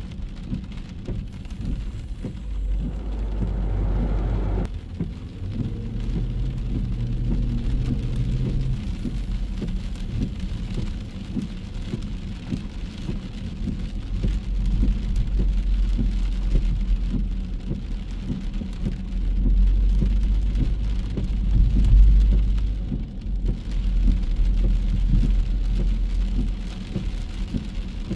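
Steady rain on a city street, with cars passing on the wet pavement and a low rumble throughout, heaviest about twenty seconds in.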